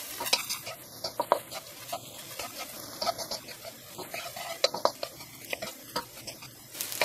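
Cooked rice and prawns being stirred and turned in a hot frying pan: a utensil scrapes and clicks irregularly against the pan over a steady sizzle as the rice is mixed in and warmed through.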